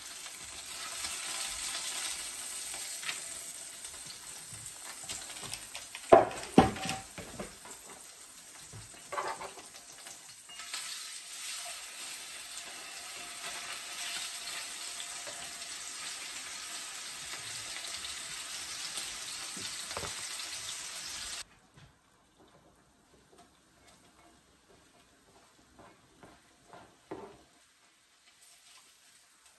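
Chicken pieces sizzling in hot oil in a frying pan, with a metal utensil clacking against the pan a few times about six seconds in. The sizzle cuts off abruptly about two-thirds of the way through, leaving near quiet with a few faint clicks.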